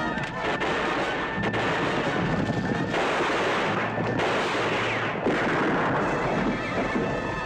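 Several gunshots from a TV-western gunfight soundtrack, over dramatic background music.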